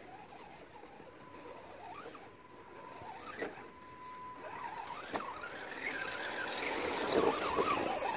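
Electric RC rock crawler's motor and drivetrain whining, the pitch rising and falling with the throttle as it crawls over ruts, growing louder as it comes close. There are a couple of sharp knocks from the chassis and suspension, about three and a half and five seconds in.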